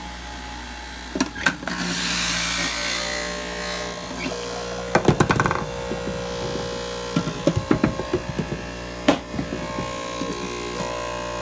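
Electric juicer motor running with a steady hum, while apple pieces and the plastic pusher knock and clatter in the feed chute. There is a quick rattle of knocks about five seconds in, another cluster a couple of seconds later, and a single knock near the end.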